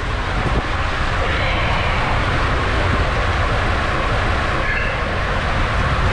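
Rushing water and a rider's body sliding fast down an enclosed water-slide tube: a loud, steady rush with a heavy low rumble, echoing inside the tube.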